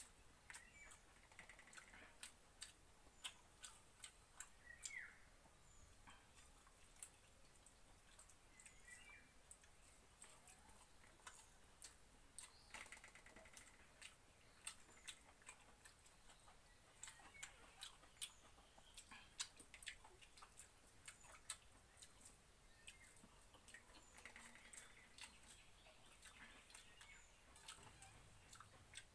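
Faint eating sounds: irregular clicks and smacks of chewing, a few a second, as fingers work watery rice in a steel pot.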